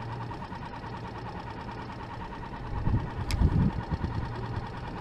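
Mercury 6 hp outboard motor idling with a steady low hum. A few low bumps come about three seconds in, and two sharp clicks sound, one in the middle and one at the end.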